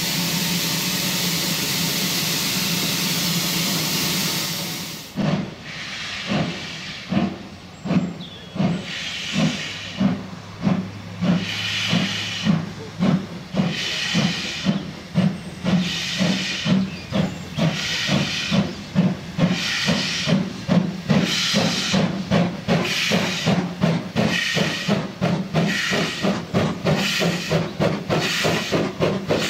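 Steam locomotive: a steady hiss of escaping steam for about the first five seconds, then the exhaust beats of a locomotive pulling away. The beats start slowly and quicken steadily as it gathers speed.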